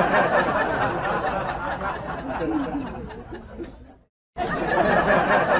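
Many people chattering and laughing at once, like an added laugh track. It breaks off for a moment about four seconds in, then starts again.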